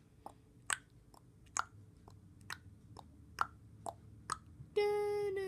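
A series of about nine short, dry clicks, a little under one a second, made by mouth. Near the end a child's voice sings one held note.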